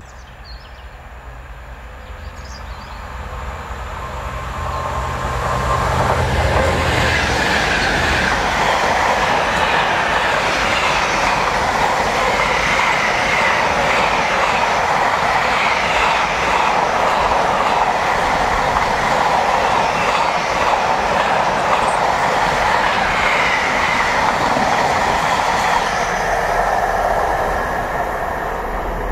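Intermodal container freight train passing at speed. The sound builds over the first six seconds, then holds as a steady rush and clatter of wagon wheels on the rails, and eases off near the end.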